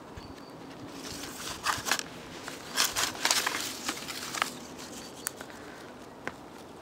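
Thin plastic nursery pots and heuchera leaves rustling and crackling as one potted plant is put down and another picked up, followed by a couple of light clicks near the end.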